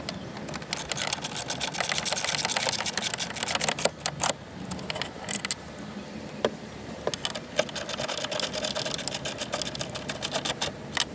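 Dense, rapid clicking and rattling with sharp separate clicks scattered through: hand work on the car door's handle mechanism.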